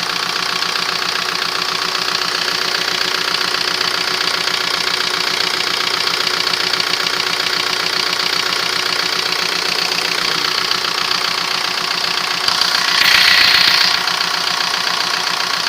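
Audi A3 1.9 TDI four-cylinder diesel engine idling warm with its steady diesel clatter, while the injection pump is still set for too much fuel and too-late injection timing. A louder rushing noise rises over it for about a second near the end.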